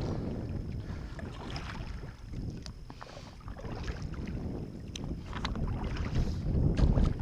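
Wind rumbling on the microphone aboard a kayak, with scattered light clicks and knocks.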